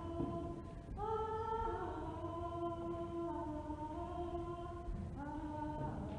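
A woman's voice singing long, held wordless notes. It moves to a new pitch with a short rising slide about a second in and again near the end: improvised singing for the dancers to move to.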